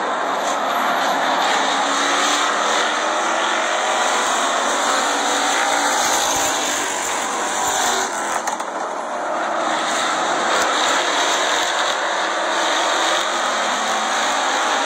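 Purestock stock cars racing around an oval track, their engines running together in a steady loud din. One car passes close by about halfway through.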